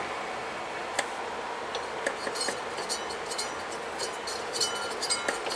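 Light metallic clicks and clinks as the old lawn tractor transmission and its drive parts are worked by hand, with one sharper click about a second in. The clinks come in a scattered run over the second half.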